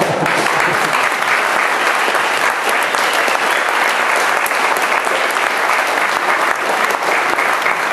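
Audience applauding: a steady, sustained mass of hand claps.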